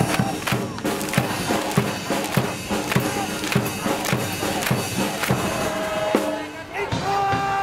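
University cheering squad's band playing a fight song in the stands, a drum keeping a steady beat of a little under two strokes a second under held brass-like tones.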